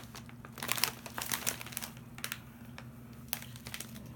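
Snack bag of popcorn crinkling as it is handled, in irregular bursts of crackles that are densest in the first second and a half and thin out to a few single crinkles later.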